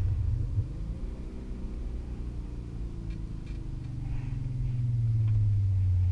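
Turbocharged VW Golf Mk4 R32's VR6 engine heard from inside the cabin, its revs falling steadily as the car slows for a tight corner, then settling into a deeper, louder steady drone near the end.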